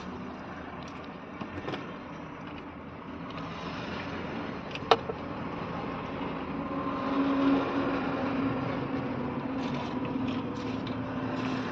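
Small clicks of hands working wires into a plastic fuse socket, with one sharp click about five seconds in. Under them runs a steady low rumble and hum that grows louder in the second half.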